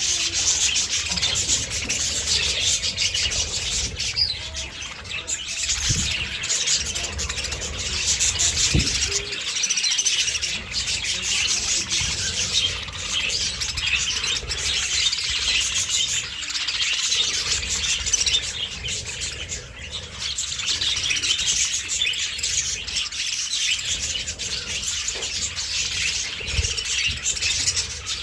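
A flock of budgerigars chattering and chirping all at once, a continuous dense twittering that never pauses.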